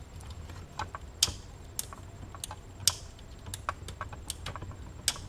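Slide switches on a Midland 13-862B CB radio clicked back and forth in a string of about a dozen irregular sharp clicks, working in freshly applied electrical grease so the sticky switches slide freely.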